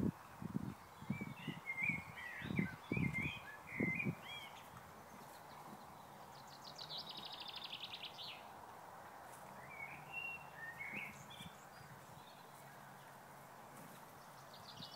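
Wild birds singing outdoors: scattered chirps, a fast high trill about seven seconds in, and more calls a few seconds later. Several short low, dull sounds come in the first four seconds.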